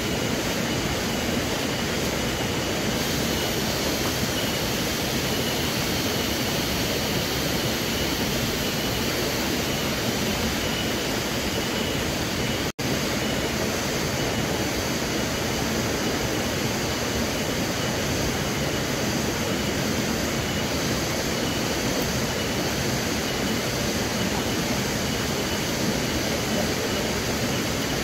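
Steady rushing background noise at a constant level, cut out for a split second near the middle.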